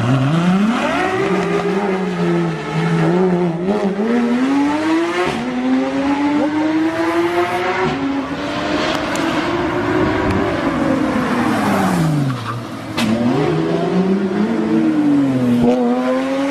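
Sports car engine revved hard over and over, its pitch climbing and then dropping away every few seconds.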